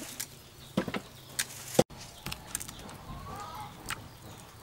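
Raw chicken drumsticks handled in a plastic basket, giving a few sharp clicks and soft knocks in the first two seconds. A bird chirps faintly in the second half.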